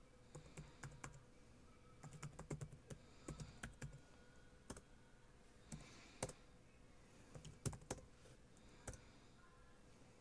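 Faint computer keyboard keystrokes: short runs of key clicks typing a command, broken by pauses, with a few single key presses.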